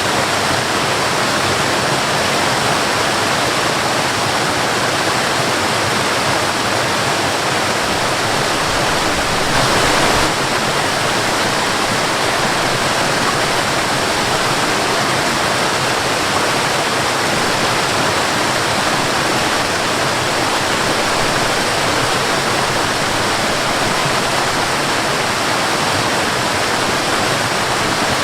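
Waterfall: falling water rushing in a steady, even roar, slightly louder for a moment about ten seconds in.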